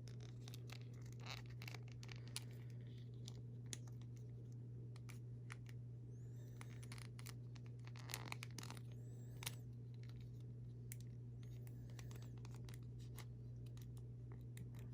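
Tight-fitting vest being worked off a plastic wrestling action figure by hand: faint scratching and rubbing with scattered small clicks, busiest in the middle stretch.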